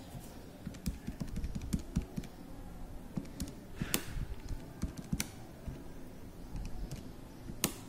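Buttons of a Casio scientific calculator being pressed in a quick, irregular run of soft plastic clicks, with a few sharper clicks standing out.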